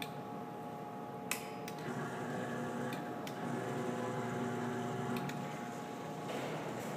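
Claw machine running as the claw is steered over the prize pile: a steady electric hum whose pitch changes about two seconds in, with a single sharp click about a second in.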